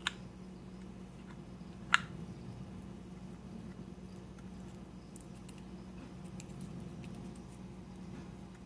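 Handling noise from a sealed solder spool in its packaging: a sharp click about two seconds in and a few light ticks later, over a steady low hum.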